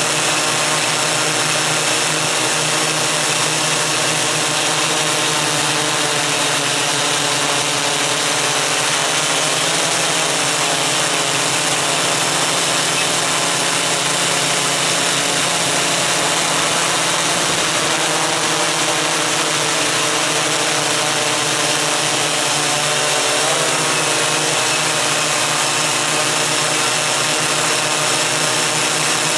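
Electric motors and propellers of a MikroKopter Koax-Quadro X8 coaxial octocopter running steadily in flight, heard from the camera mounted on it: a loud, even whine with slight shifts in pitch.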